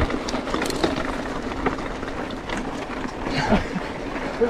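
Mountain bikes being ridden: a steady rush of wind and tyre noise with scattered clicks and rattles from the bikes.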